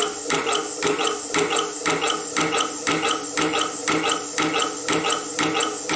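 Homemade single-cylinder compressed-air engine running steadily on shop air, beating about twice a second with each stroke's air exhaust and valve action, over a steady tone.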